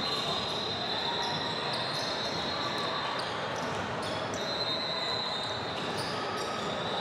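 Basketball game on a hardwood court: the ball bouncing and sneakers squeaking, with the echo of a large gym hall.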